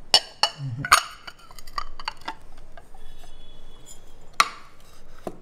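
Ceramic bowl and china plate clinking and knocking together as the bowl is turned over onto the plate to unmould a panna cotta: a few sharp clinks in the first second or so, a couple more in the middle, and the loudest about four and a half seconds in.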